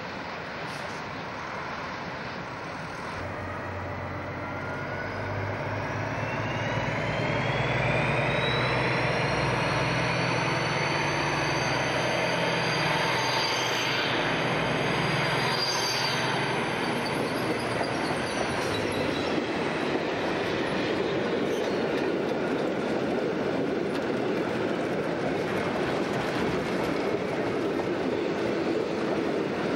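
Freight train double-headed by two diesel locomotives, a DSB class MZ leading, approaching and passing close by. Deep diesel engine hum with a high whine that climbs as the locomotives near and is loudest about halfway through. Then the steady rolling rumble of the box wagons going past.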